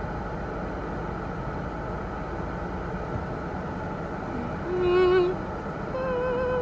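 Steady rumble and hiss of a car cabin while the car idles in a queue. About five seconds in a woman's voice gives a short sung note, and near the end she starts a longer held, slightly wavering note.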